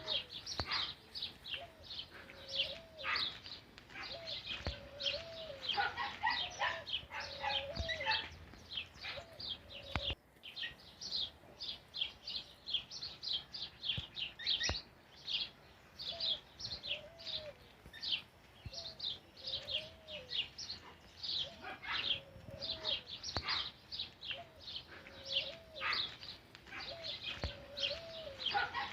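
Birds chirping: many short, high chirps overlapping throughout, with a lower, bending call repeated in runs underneath.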